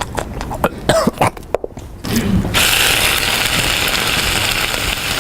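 Loud, rapid crunching and crackling from a snack being eaten noisily, for about a second and a half; after a brief gap a steady hiss takes over.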